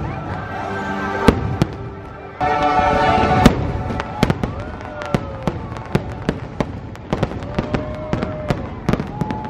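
Fireworks going off, with music playing underneath. There is a heavy bang about a second in and another about three and a half seconds in, then a quick run of sharp cracks and pops.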